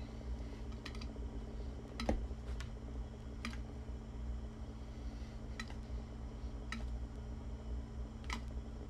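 Scattered light clicks and taps, roughly one a second at irregular spacing, from hands working a small rolled paper scroll out of a wooden presentation box, over a low steady hum.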